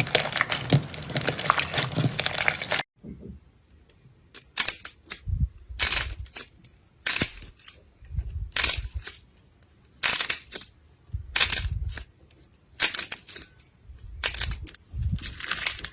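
Slime being squeezed and pressed by hand, making crackling squishes. A continuous crackling stretch cuts off abruptly about three seconds in, and is followed by separate crackling squeezes roughly every second and a half.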